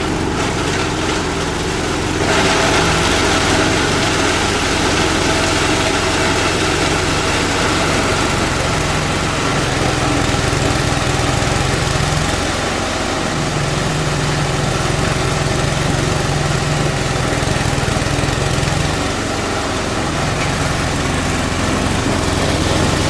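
Diesel-driven chopper-grinder running steadily while grinding corn cobs: a constant engine drone mixed with dense shredding noise, which grows louder about two seconds in.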